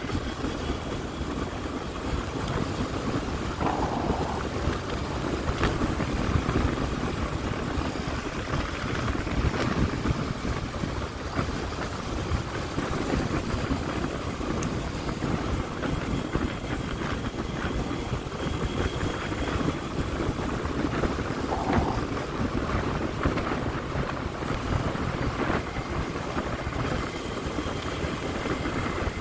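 Yamaha Crypton S underway at steady cruising speed: its engine runs under a steady rush of wind on the microphone and road noise.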